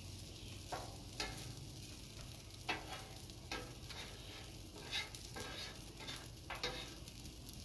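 Fried rice with egg and beef sizzling on a hot flat-top griddle, with short scraping strokes of a spatula on the cooktop every second or so as the rice is stirred.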